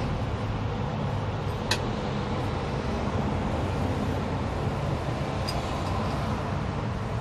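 Steady low rumble of running vehicle engines, with a single sharp click about two seconds in and a few faint clicks later.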